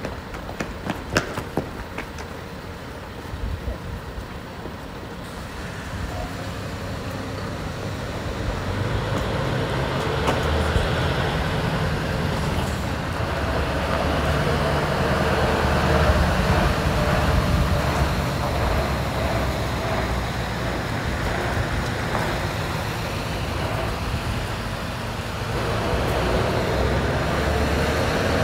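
Heavy tractor unit's diesel engine pulling a multi-axle low-loader carrying a railway carriage at walking pace, growing louder as it comes close and passes. A few sharp clicks sound near the start.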